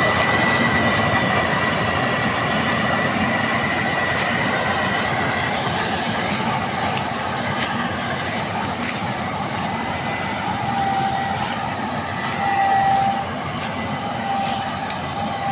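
Combine harvester running under load: a steady mechanical noise with a constant high whine.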